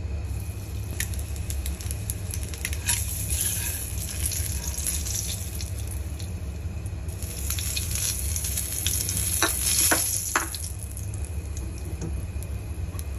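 An egg sizzling as it fries in oil in a nonstick frying pan, over a steady low hum. A spoon and a silicone spatula tap and scrape against the pan now and then, with three sharp clicks close together about ten seconds in.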